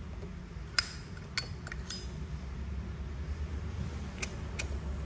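Silver-plated brass Zippo lighter being flicked open and snapped shut: a few sharp metallic clicks in the first two seconds and two more near the end. The lid's click sounds normal.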